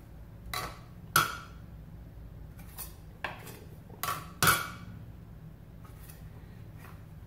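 Metal bench scraper striking a granite countertop, sharp ringing clacks as it cuts down through the dough to the stone. The loudest come about a second in and again about four and a half seconds in, with a few lighter taps between.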